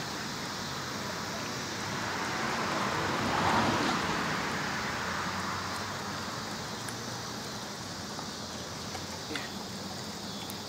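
Steady hiss of a vehicle passing on a wet road, swelling to a peak about three and a half seconds in and fading again, with a few faint clicks later on.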